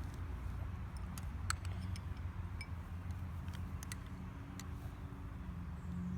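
Steady low rumble with scattered faint clicks and ticks.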